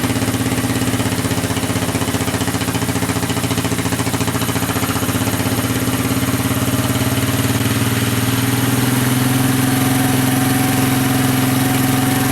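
Honda 200SX ATV's single-cylinder four-stroke engine idling steadily with a rapid, even firing pulse; it grows slightly louder and smoother about nine seconds in.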